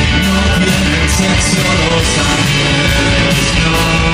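Live rock band playing loud and steady: electric guitar, bass and drums, with a man singing into the microphone.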